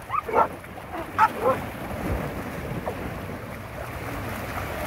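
Dogs splashing and paddling through shallow sea water, with small waves lapping and wind buffeting the microphone. A few short dog yips come in the first second and a half.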